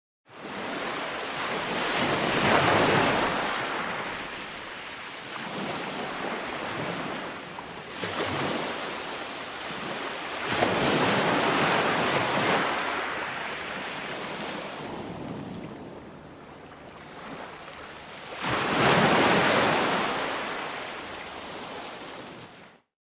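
Ocean waves breaking on a shore: the surf rushes in and washes back, swelling to three loud surges, the last near the end. The sound cuts in and cuts off abruptly.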